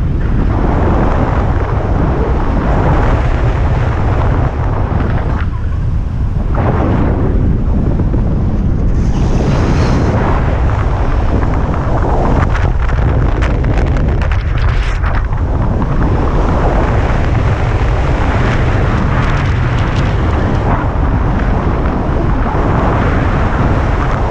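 Rushing airflow buffeting a speed-flying pilot's camera microphone in flight, a loud, heavy rumble that swells and eases in gusts.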